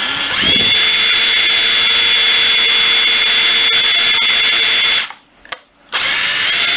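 Makita TD149D 18V cordless impact driver running free with no load: the motor spins up with a rising whine and holds a steady high whine for about five seconds. It stops sharply, gives a short blip, then spins up again near the end.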